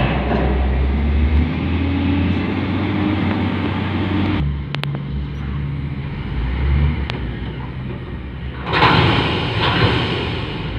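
Kalmar reach stacker's diesel engine running under load, its pitch rising slowly over the first four seconds before dropping back. A loud burst of hissing comes about nine seconds in.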